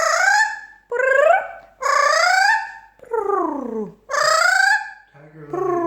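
A small green pet parrot gives a series of five loud, separate calls, each under a second long. Most sweep upward in pitch and one slides down, with a lower, rougher call starting near the end.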